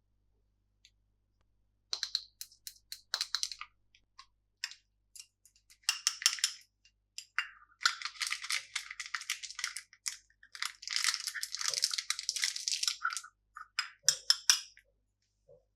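Candy packaging being handled and opened: scattered crackles and clicks, then two longer stretches of crinkling and rustling in the middle, with more crackles near the end.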